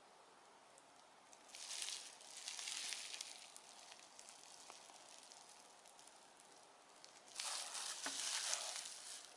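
Plastic bubble wrap crinkling as a wrapped figure is handled, in two bursts of crackling: one starting about one and a half seconds in and lasting about two seconds, another near the end.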